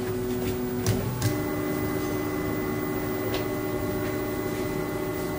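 Stepper motors of a home-built 3D printer whining as the machine auto-homes its axes. After a brief hum and two clicks about a second in, a steady multi-pitched motor whine sets in and holds.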